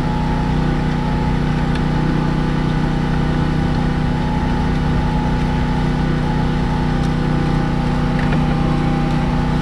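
An engine or motor running steadily at a constant pitch, a low even hum with no change in speed.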